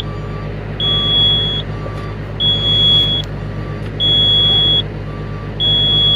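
Komatsu PW180 wheeled excavator's warning buzzer beeping in a steady on-off pattern, four beeps of just under a second each, over a steady low hum of the running machine. It is the alarm that the title puts down to low brake oil pressure.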